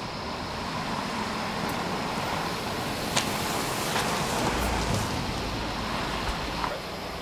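Car engines running with a steady rush of road and engine noise, a low rumble swelling from about four and a half seconds in to near the end, and a single click about three seconds in.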